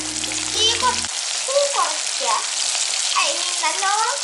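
Flour-coated chicken legs deep-frying in hot oil in a steel pot: a steady sizzle.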